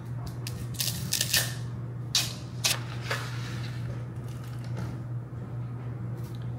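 Dry spaghetti noodles being broken and handled: a cluster of sharp snaps and rattles in the first few seconds and a few more later, over a steady low hum.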